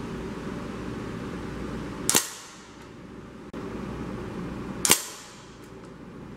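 Two shots from a .177 air rifle firing pellets, each a sharp crack with a short ring, about two and a half seconds apart, over a steady low background noise.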